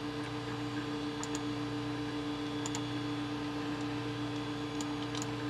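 Steady hum of a desktop computer running, with a few faint ticks from the hard drive as it works through a partition resize.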